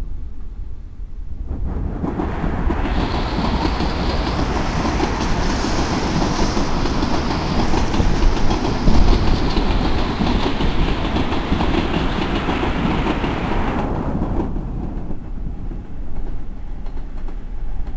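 Ten-car Sotetsu Line electric commuter train running past on the tracks below, its wheels clacking over the rail joints. The noise swells about two seconds in and eases off near the end.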